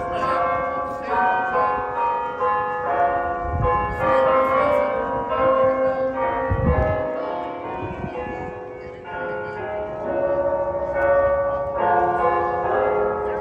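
Church bells of Mission San José ringing: several bells struck over and over in overlapping peals, their tones sounding together.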